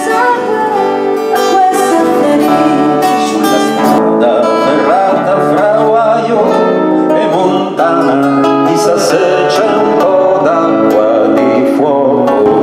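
A live acoustic band playing, led by guitars, with double bass and accordion in the ensemble and a melody line weaving over the chords.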